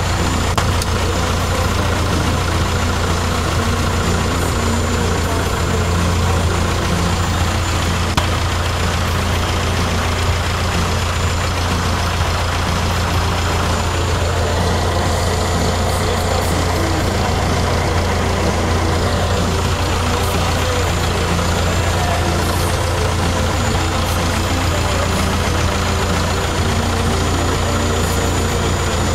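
Cessna 152's four-cylinder Lycoming engine and propeller running steadily, heard from inside the small cabin as the plane taxis.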